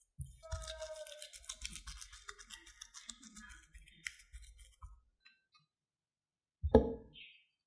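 Food-preparation handling in a kitchen: a run of small crackling clicks and rustles for about five seconds, then a single loud thump near the end.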